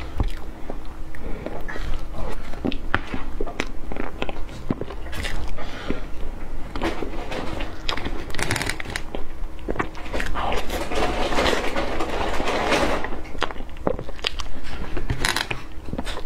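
Close-miked eating of a whipped-cream layer cake: wet mouth clicks and smacks while chewing soft sponge and cream, with a metal spoon scooping through the cake.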